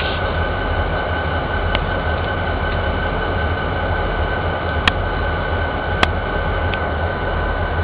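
Freight train of boxcars in a rail yard: a steady low rumble under a faint, steady high whine, with a few sharp clicks, the loudest about five and six seconds in.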